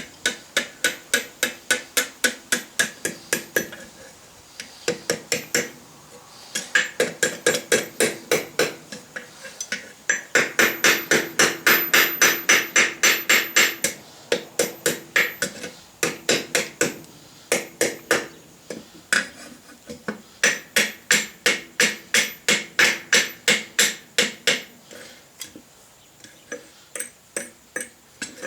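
Hand hammer striking steel on an anvil in quick, even runs of about four blows a second, with short pauses between runs; each blow rings metallically.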